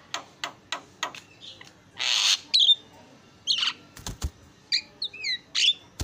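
Javan myna calling: a run of quick clicking notes, then a loud harsh screech about two seconds in, followed by short whistles and gliding whistled notes toward the end. There are two knocks about four seconds in.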